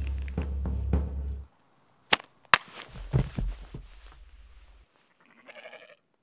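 Music with a steady beat cuts off suddenly. Two sharp snaps follow about half a second apart, a slingshot loosing its stone and the stone striking, and then a body tumbling and thudding down the grassy slope. A short sheep bleat comes near the end.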